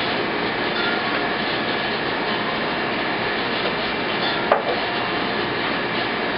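A knife working through a yellowfin tuna on a cutting board, with rubbing and cutting sounds and one sharp knock about four and a half seconds in, over a steady background hiss.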